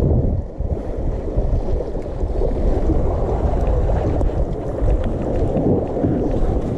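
Wind buffeting the microphone: a steady, loud, low rumble.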